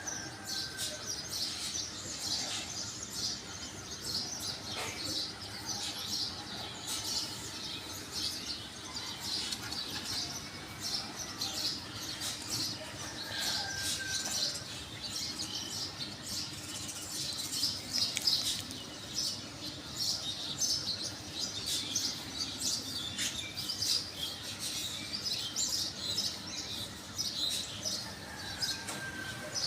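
Outdoor birds chirping and singing continuously, many short high chirps overlapping, with a few longer, lower calls now and then.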